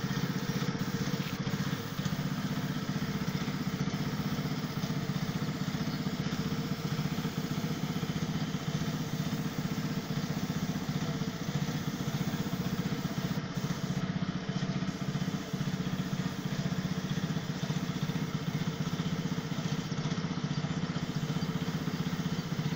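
Small engine-driven air compressor running steadily at a constant speed, with the hiss of a paint spray gun over it.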